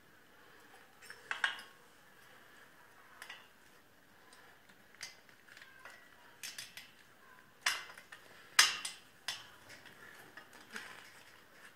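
Irregular small metallic clicks and clinks of pliers and a small steel pin being worked into place on an engine's piston assembly, the loudest pair of clinks a little before and a little after eight seconds in.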